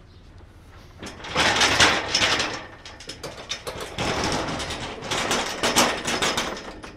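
Metal gate hardware rattling and scraping in two stretches, beginning about a second in and again around four seconds in, with sharp clanks among the scraping.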